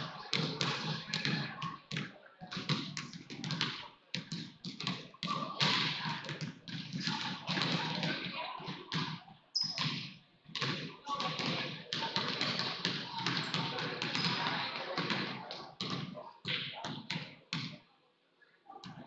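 Several basketballs bouncing on a hardwood gym floor during warm-ups: irregular, overlapping thumps with a brief high squeak about ten seconds in.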